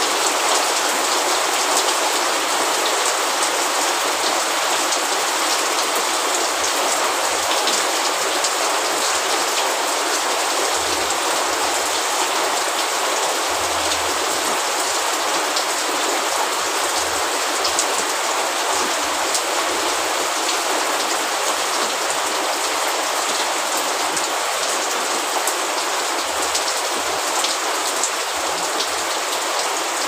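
Steady rain falling: an even hiss of many drops, with scattered sharper drop ticks and no let-up.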